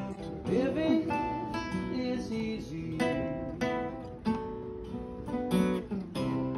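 Two acoustic guitars playing together: chords strummed in a steady rhythm with plucked notes between, a strum roughly every half second.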